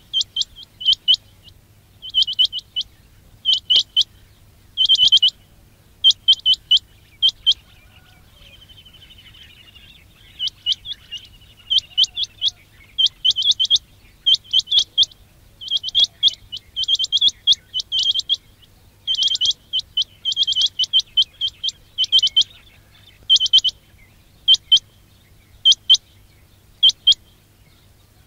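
Quail calling: short, sharp high notes in quick clusters of two to four, repeated about once a second, with a brief pause partway through where a fainter warbling call is heard.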